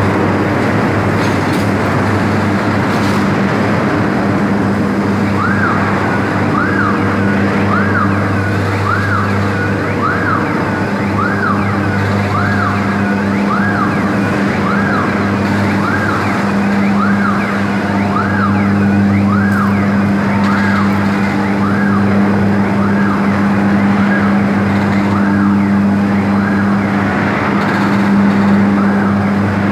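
Overhead crane's warning siren sounding over a steady low hum of plant machinery. The siren starts about five seconds in and repeats as short rising-and-falling calls about once a second, growing fainter toward the end.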